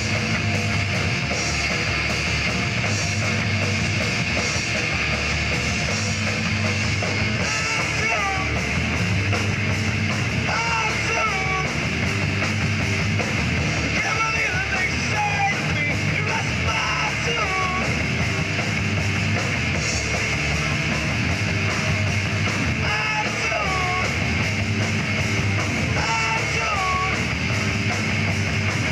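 Live punk rock band playing: distorted electric guitars, bass and drum kit, with a shouted singing vocal coming in about eight seconds in.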